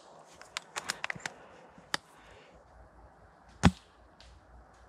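An airsoft gun fires once, a single sharp crack about three and a half seconds in. A run of light clicks and knocks comes between half a second and two seconds in.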